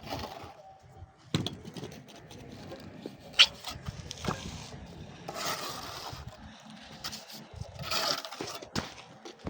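Irregular scraping of hand tools on masonry, with a few sharper knocks, the loudest about three and a half seconds in.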